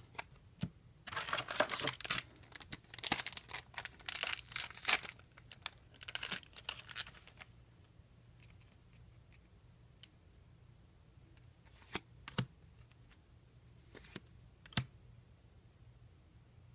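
A foil trading-card booster pack being torn open, its wrapper crinkling in bursts for several seconds. This is followed by a few separate sharp taps.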